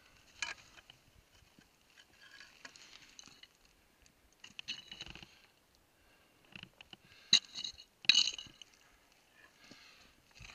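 Scattered scrapes and clicks of a climber's gloves, boots and hanging gear against rock and loose stones, with two sharp clacks about two-thirds of the way through.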